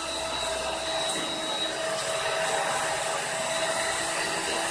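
Steady whirring of a small electric motor, with a few faint steady tones over it.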